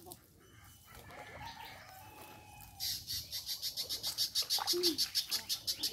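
Birds calling outdoors. From about three seconds in, a rapid, evenly repeated run of high-pitched notes, around seven a second, is the loudest sound. Fainter, lower calls come before it.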